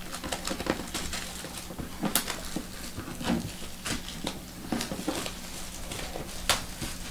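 Clear plastic shrink-wrap crinkling and crackling as it is peeled off a cardboard trading-card box, in irregular small clicks with two louder snaps, one about two seconds in and one near the end.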